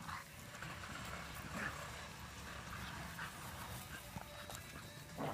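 Dogs playing together, with a few brief dog cries spaced a second or two apart.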